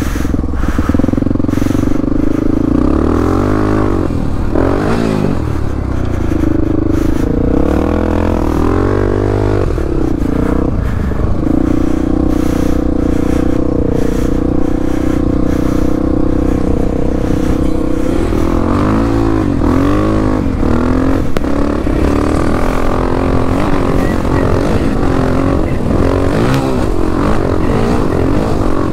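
Dirt bike engine running hard off-road, its revs rising and falling again and again with the throttle. It holds a steady pitch for several seconds mid-way, with occasional sharp knocks.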